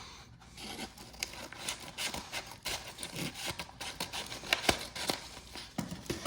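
Close handling noises: irregular rubbing and scraping with many small clicks and ticks of objects being moved about on a desk.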